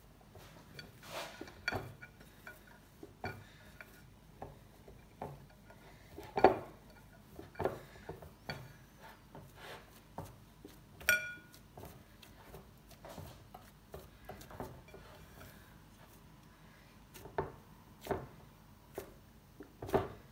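Hands kneading a flour, water and salt dough in a glass bowl: irregular soft slaps and pushes, with the bowl knocking on the counter now and then. About eleven seconds in there is one short ringing glassy clink.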